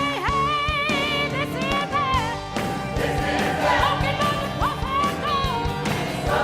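Church worship music: voices singing held, wavering notes over instrumental accompaniment.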